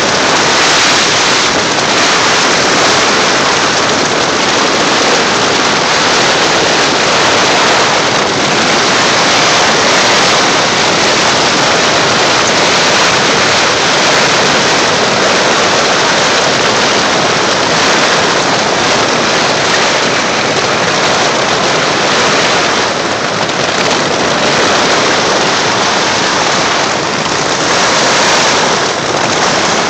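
Heavy rain and strong wind of a violent thunderstorm beating on tents, heard from inside a tent: a loud, steady rush of noise with no let-up.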